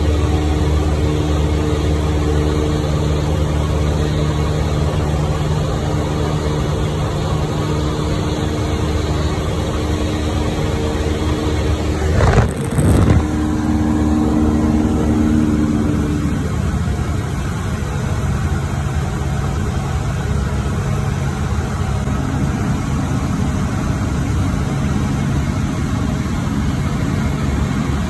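Cessna 152's four-cylinder Lycoming engine and propeller droning steadily in cruise flight, heard inside the cabin. A brief knock and rustle about twelve seconds in.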